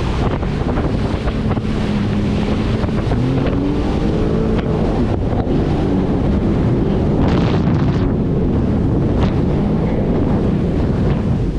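Jet ski engine running at speed across open-ocean swells, its pitch rising and falling as it hits and jumps the waves, under heavy wind buffeting on the microphone and rushing water, with a couple of louder splashes later on.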